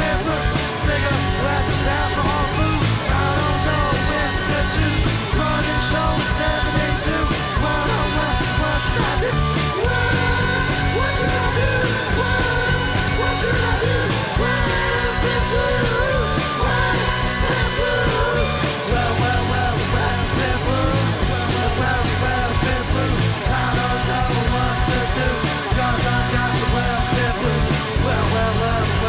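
Punk rock song playing at a steady, full level: a band with a shouted, sung vocal.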